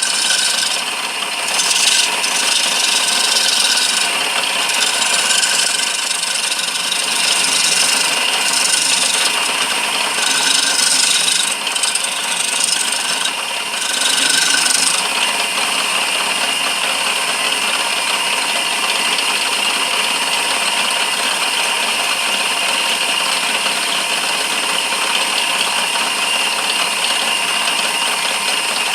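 Lathe turning a walnut handle, the cutting tool scraping and shaving the spinning wood in uneven passes. About halfway through the cutting stops and only the lathe's steady running is left.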